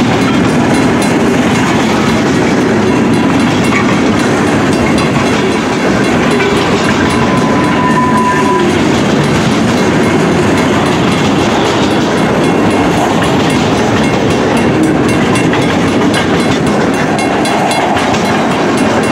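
Freight cars of a passing train rolling by close at hand: a loud, steady rumble and rush of steel wheels on rail, from centerbeam flatcars loaded with lumber and then a tank car at the rear.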